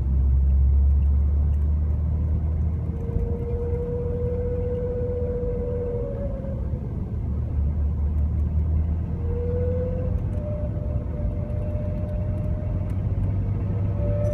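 Audi 80 V6 quattro with a low rumble and an odd whine over it. The whine comes in about three seconds in, fades out around seven seconds, then returns a little higher in pitch and holds steady through the rest.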